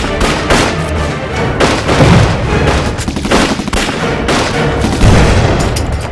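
Battle sound effects of gunfire and explosions over dramatic film score music. Repeated shots run throughout, with the heaviest blasts about two seconds in and again about five seconds in.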